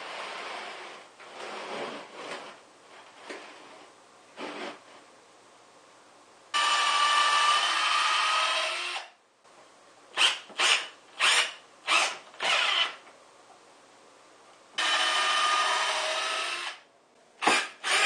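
Cordless drill running into pine wood: after a few seconds of softer handling knocks, it makes a steady run of about two and a half seconds. A quick series of five short trigger bursts follows, then a second steady run of about two seconds and another short burst near the end.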